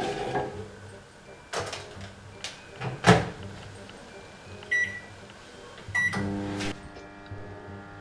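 Microwave oven: knocks as a bucket is set inside, the door shutting with a clunk about three seconds in, then two keypad beeps. After that the oven starts running with a steady hum.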